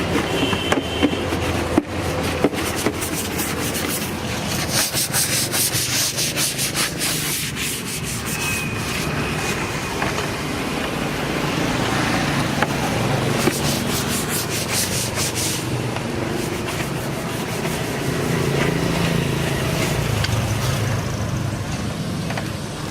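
Quick back-and-forth scrubbing strokes on a refrigerator surface, in two spells, the first about five seconds in and the second around the middle, over a steady low hum.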